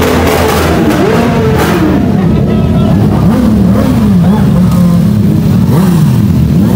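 Sport motorcycle engine revved in repeated throttle blips over a steady running drone. The pitch climbs and falls again several times, most often in the middle stretch.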